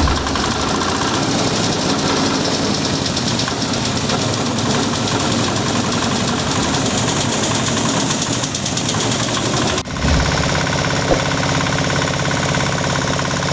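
Grass chopper machine running, a loud steady mechanical din with a rapid rattle. About ten seconds in the sound changes abruptly to a steadier, lower hum.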